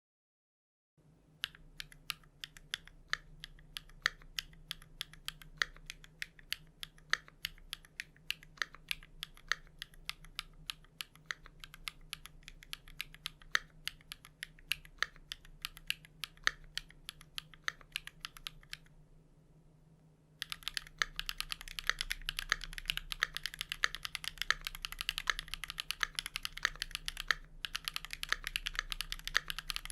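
Keychron Q2 mechanical keyboard with Owlab Neon switches, PBT Cherry-profile keycaps, a steel plate and foam and tape mods being typed on: slow, separate keystrokes at first, then after a short pause about two-thirds of the way in, fast continuous typing. The keystrokes are clacky, crisp and high-pitched.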